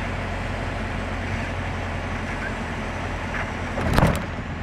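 Light touring aircraft's engine droning steadily, heard from inside the cockpit. About four seconds in, a brief loud crackling thump cuts across it.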